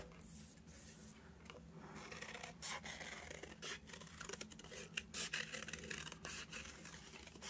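Scissors snipping around a circle in thin paperboard (cereal-box card): a faint run of short, irregular cuts starting about two seconds in.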